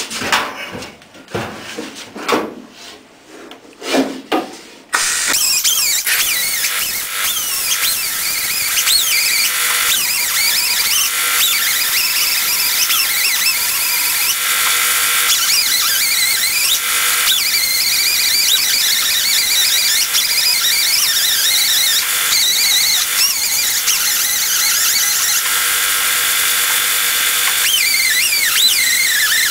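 Knocks and handling noises, then about five seconds in a power sander or grinder starts abruptly and runs steadily on the truck cab's sheet metal, a loud high-pitched hiss with wavering squeals.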